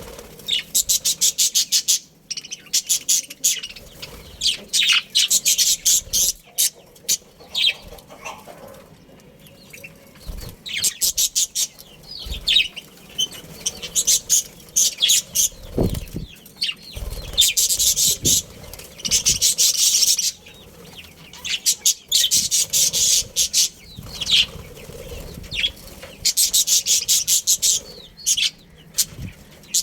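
Budgerigars chirping and chattering: rapid runs of short high-pitched chirps in bursts of a second or two, with brief pauses between.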